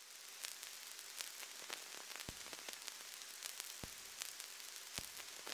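Faint surface noise of a record spinning under the stylus on a Victrola suitcase turntable: a steady hiss full of small crackles, with three louder pops spread through it.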